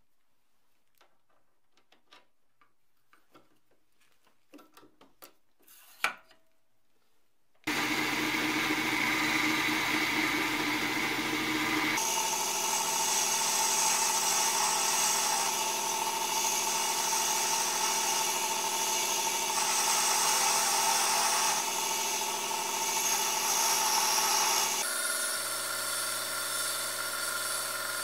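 A few faint clicks and a tap, then about eight seconds in a small metal lathe starts and runs steadily with a mix of steady tones while turning down a bright metal bar. The sound of the cut shifts around twelve seconds in and again around twenty-five seconds in.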